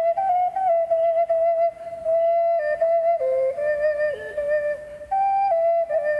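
Small wooden ethnic flute playing a slow melody of held notes with short slides and dips between them.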